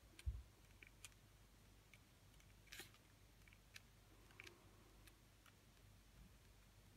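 Faint, irregular taps of a marker pen tip dabbing dots onto paper, with one low thump against the table near the start.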